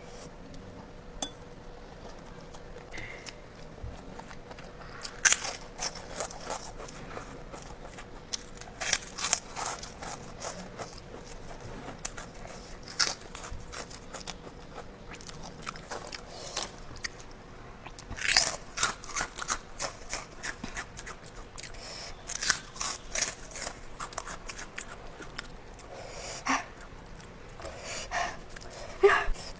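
A person eating ayam geprek, smashed fried chicken with rice and sambal, close to the microphone: irregular crunching bites and chewing that come in clusters.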